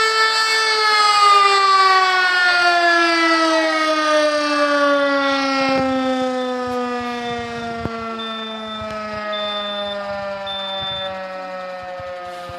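Rotary motor-driven fire siren winding down after being switched off, its pitch falling slowly and steadily. A little past the middle, three short high beeps sound.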